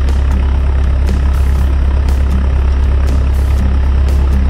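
River passenger boat's engine running steadily under way, a constant low drone.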